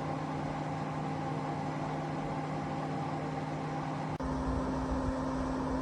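Fan of a Comfort Zone CZFP1 electric mini fireplace space heater running with a steady hum. About four seconds in the sound changes abruptly: the hum steps up to a higher note, with more low rumble.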